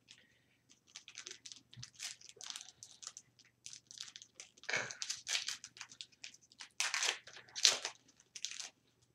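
Foil wrapper of a hockey card pack being torn open and crinkled by hand: a run of irregular crackles and rips, loudest near the end.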